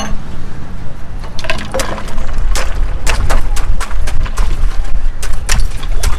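Rapid sharp clinks and knocks of glassware and utensils being handled at a juice stall, over a steady low rumble. The clinks begin about a second and a half in and come thick and fast from there.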